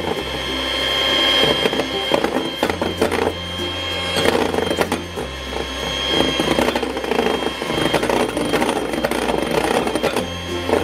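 Electric hand mixer running, its twin beaters whipping egg whites in a glass bowl back up to stiff peaks.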